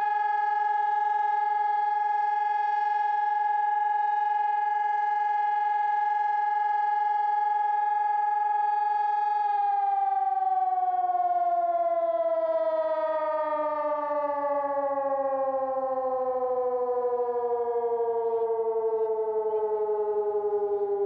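Sonnenburg SES 1200 electronic fire-station siren sounding a test alarm: a loud, steady wailing tone held for about nine seconds, then sliding slowly down in pitch like a motor siren winding down.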